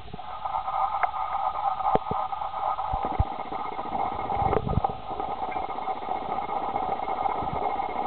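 Steady hum with a few soft knocks and rustles as a kitten bats and bites a paper toy tied to a cord on a carpet.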